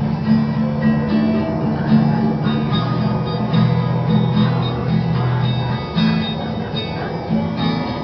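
Slow acoustic guitar music with held, plucked notes, playing from a video game.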